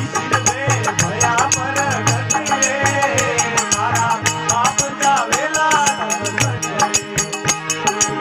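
Rajasthani devotional bhajan sung live by a male voice. Behind it, fast, evenly spaced rattling percussion ticks play over steady low sustained notes.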